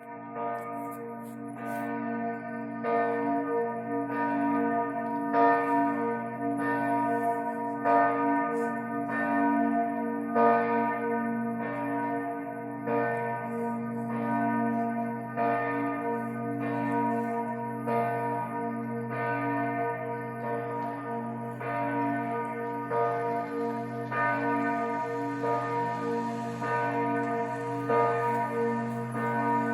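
Bells ringing: several bells struck in a steady rhythm about once every 1.2 seconds, their tones overlapping and ringing on between strikes.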